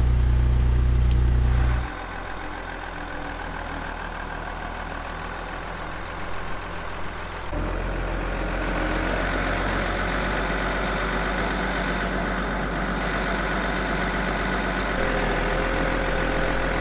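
A heavy engine idling steadily. A loud low hum drops away about two seconds in, and the sound grows louder again about halfway through.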